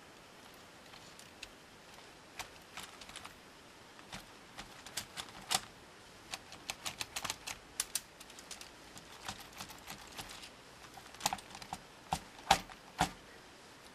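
Irregular clicks and light knocks of plastic LEGO Technic parts as the buggy model's suspension is pressed down by hand and springs back, the wheels bumping the shelf. The loudest knocks come near the end.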